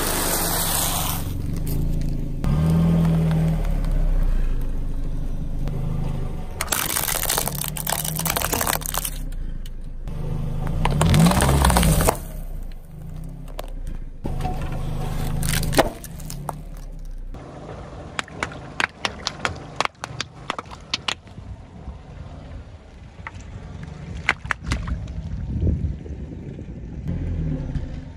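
A car tyre rolling slowly over snacks and their packaging on asphalt, crushing them with crunching, over a steady low engine hum. Several loud crunching stretches come in the first half, and a run of sharp crackles and pops follows in the second half.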